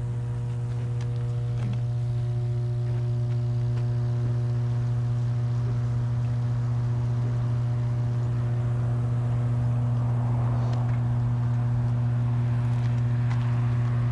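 Substation power transformer humming: a steady low electrical drone with a stack of evenly spaced overtones above it. Faint rustling comes in over it in the second half.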